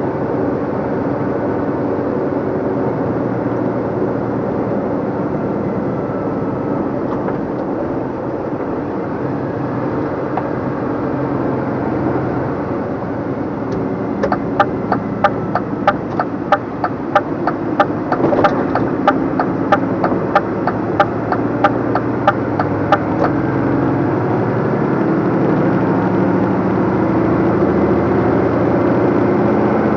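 A 2014 DAF LF55 220 lorry's diesel engine running, heard from inside the cab, growing somewhat louder near the end. Around the middle the direction indicator ticks steadily for about nine seconds, roughly three clicks a second, signalling a turn at a roundabout.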